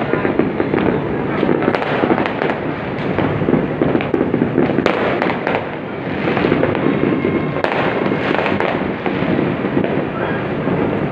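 Many fireworks going off at once across a wide area, heard from afar as a dense, unbroken crackle and popping, with a few sharper bangs standing out.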